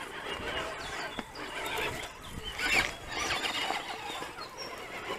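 Small electric motors and gear drives of 1/10-scale RC rock crawlers whining in short spells of wavering pitch as they crawl over rock.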